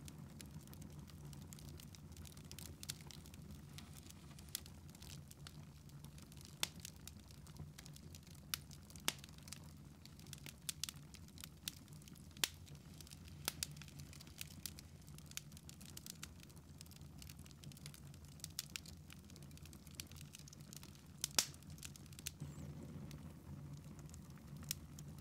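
Wood fire in a fireplace crackling faintly, with irregular sharp pops scattered throughout over a low steady hum.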